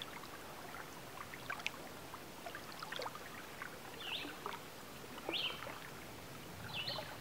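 Small waves lapping and trickling at the water's edge, with many little splashes and ticks, and three short high chirps about four, five and a half, and seven seconds in.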